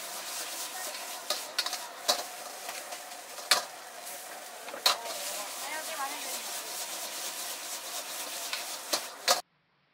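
Metal ladle scraping and clanking against a wok as egg fried rice is stir-fried, over a steady sizzle. Sharp ladle strikes come every second or so, the loudest about three and a half seconds in, and the sound stops abruptly near the end.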